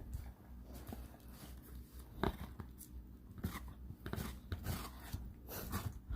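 A pitbull chewing and biting watermelon: a few short, wet crunches at irregular intervals, the loudest about two seconds in.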